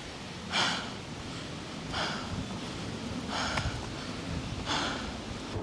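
A woman breathing hard and out of breath after climbing a steep slope: four heavy breaths, about one every second and a half.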